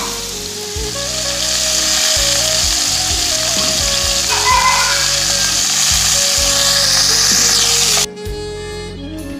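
Background music with a plain melody over a loud sizzle of a pot of carrot stew cooking on the hob; the sizzle cuts off suddenly near the end.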